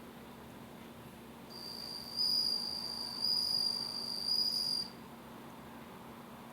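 Japanese bell cricket (suzumushi) singing: a clear, high, ringing trill that starts about a second and a half in, swells three times, and stops after about three seconds, over a faint steady hum.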